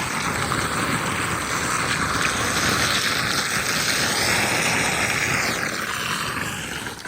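Floodwater rushing and splashing, a steady loud hiss that fades near the end.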